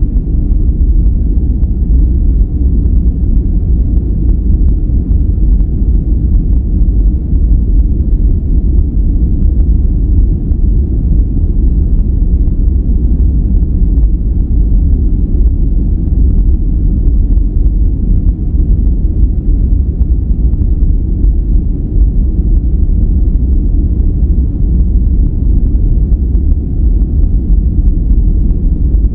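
Steady, unbroken relaxation noise that is deep and rumbling rather than hissy, with almost nothing in the highs, more like brown noise than true white noise.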